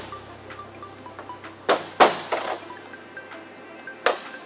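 A few sharp taps from a soft-faced mallet on a screwdriver, driving the lip seal out of a pump's mechanical-seal cartridge. Two quick taps come just before two seconds in, the loudest at about two seconds, and one more near the end.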